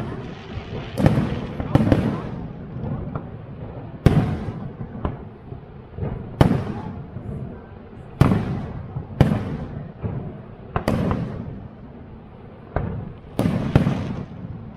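Aerial fireworks shells bursting overhead: about a dozen sharp bangs at irregular intervals, each trailing off in a rumbling echo.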